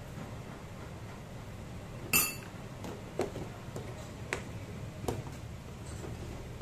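Kitchenware being handled on a tiled counter: one sharp, ringing clink about two seconds in, then three or four lighter knocks as a blender jar, a glass and plastic containers are set down and moved.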